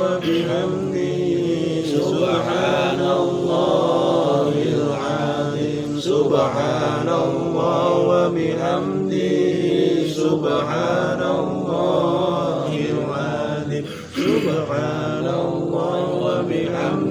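Men's voices chanting Arabic prayers together in a continuous, melodic recitation, broken by a short pause for breath about fourteen seconds in.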